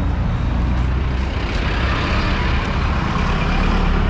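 Road traffic running past, with a steady low engine rumble and tyre noise.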